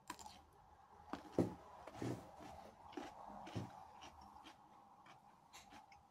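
A large pickled gherkin being bitten and chewed, with a string of short, irregular crunches that thin out in the last couple of seconds.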